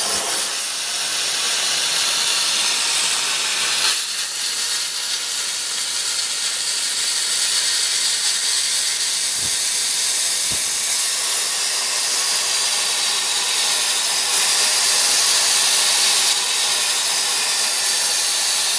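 CIG Weld Easy Cut 35 air plasma cutter hissing steadily as the CNC-driven torch runs along a cut in 6 mm steel plate. The arc is only etching the plate and not cutting through it: too little for that thickness.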